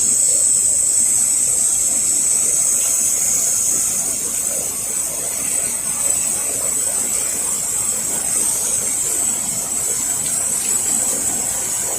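Steady hiss of a soft-wash sprayer nozzle applying a 1% cleaning mix.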